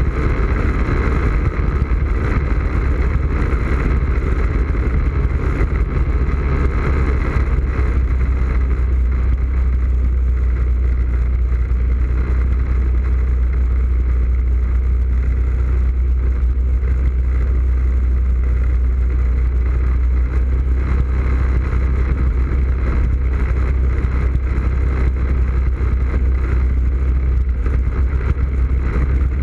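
ATV engine running steadily while the quad rides along a dirt trail, picked up close by a microphone on its front rack, with a heavy low rumble throughout.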